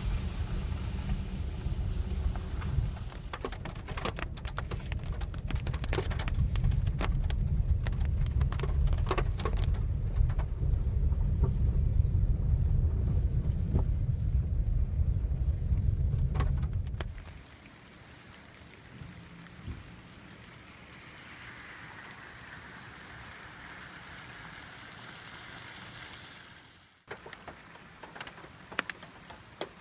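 Rain and drips from the tree canopy striking a car roof, heard from inside the cabin as sharp scattered ticks over the low rumble of the moving car. About 17 s in the rumble cuts off abruptly, leaving a softer patter of rain with occasional single drops.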